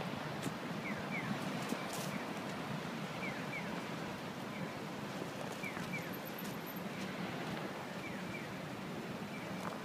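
Steady city street ambience with traffic passing. A few short light knocks come as a block of ice is pushed along brick paving by foot, and short high falling chirps repeat in pairs every second or two.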